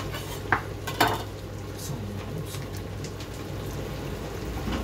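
Metal fork scraping and tapping against a non-stick frying pan as cooked chicken strips are turned and loosened from the bottom. There are two sharper clicks, about half a second and one second in, over a steady low hum.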